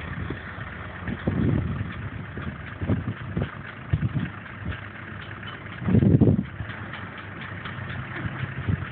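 Off-road pickup truck's engine idling, with irregular swells and one brief louder burst about six seconds in.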